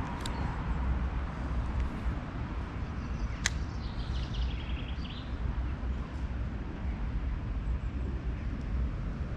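Spinning rod and reel being cast and reeled in, with a single sharp click about three and a half seconds in and a short run of faint ticks after it, over a steady low rumble.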